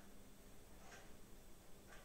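Faint ticking, one tick a second, as from a clock, over quiet room tone.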